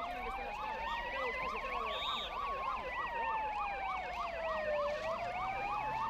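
Several emergency vehicle sirens sounding at once: a slow wail rising and falling over several seconds, over faster warbling sirens that cycle about three to four times a second.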